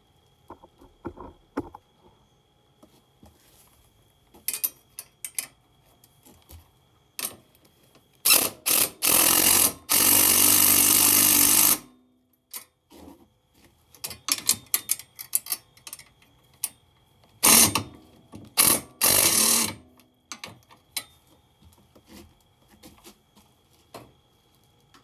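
A power tool run in short bursts and one longer pull of about two seconds, driving the nut onto the bracket bolt, among scattered clicks and clatter of tools and hardware.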